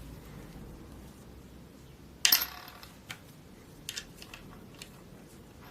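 Metal parts clinking while being handled and fitted together: one sharp, ringing metallic clatter about two seconds in, then a few lighter clicks.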